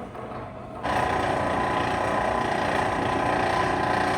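Wire stripping machine's electric motor and gearing running steadily with a whine. It comes in abruptly about a second in.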